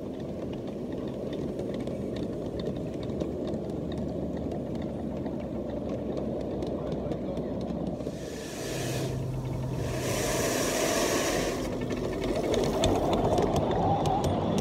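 Ride-on live-steam train rolling along the track: a steady rumble of wheels on rail with scattered clicks. About eight seconds in there are two bursts of steam hissing, the second a little longer.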